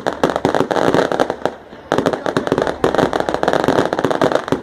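A rapid, dense string of firecracker bangs going off. It comes in two long runs with a brief lull a little before the middle.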